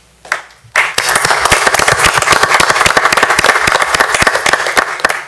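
A roomful of people applauding: a few single claps, then dense, steady clapping from about a second in.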